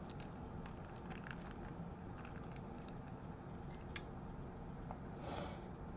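Faint scattered clicks and taps of small metal parts and tools being handled on a rifle lower receiver during a safety selector install, with a sharper click about four seconds in and a brief rustle near the end.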